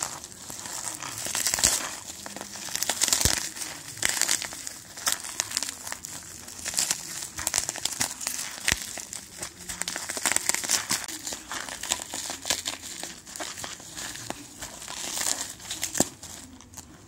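Plastic packaging crinkling and crackling as it is handled and unwrapped, in repeated louder bouts with sharp clicks.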